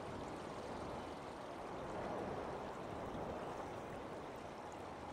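Faint, steady outdoor ambience: an even rushing noise with no distinct events.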